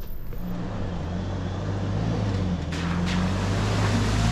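Off-road truck's engine running steadily and slowly getting louder. A broad hiss, such as tyres on the trail, joins it about three seconds in.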